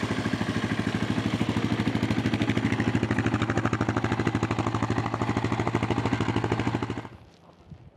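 Yamaha Serow XT225's air-cooled single-cylinder four-stroke engine idling steadily with an even, rapid putter, running again after a long winter layup. The sound cuts off abruptly about seven seconds in.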